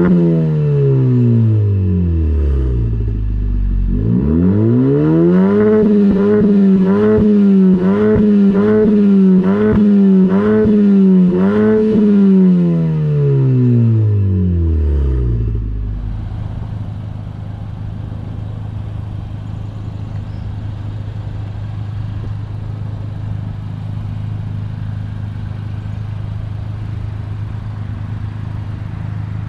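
Civic Type R's turbocharged four-cylinder revving through a muffler- and resonator-delete exhaust. The pitch falls, then climbs sharply and holds high, wavering about once a second, before winding down over a few seconds. After that it settles into a steady low idle.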